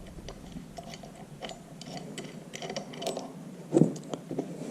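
Scattered light metallic clicks and taps, with one louder knock near the end: small metal parts or tools being handled.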